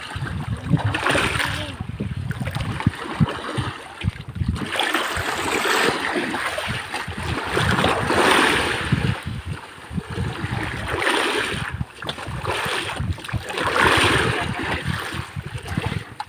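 Sea water rushing and splashing along the bamboo outrigger floats of a moving outrigger boat, surging louder and softer every couple of seconds, with low buffeting underneath.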